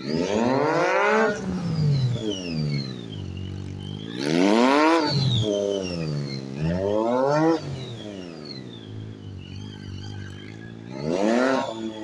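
Triumph 675 three-cylinder motorcycle engine revving hard and dropping back again and again as the bike accelerates between cones and slows for tight turns. There are four sharp rising-and-falling rev bursts, the loudest about four seconds in.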